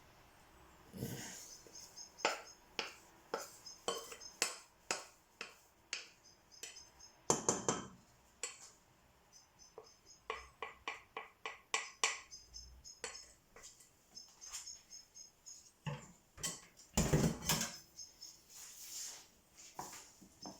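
Pots, lids and utensils clinking and knocking at irregular intervals, with louder clatters about seven and seventeen seconds in. A high, rapid chirping comes and goes in short trills behind it.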